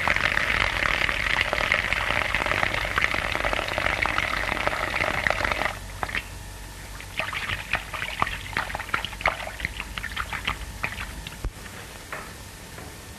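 Liquid pouring in a steady stream into a felt bowler hat, splashing inside it. About six seconds in the stream stops, and irregular drips and dribbles continue for several seconds more.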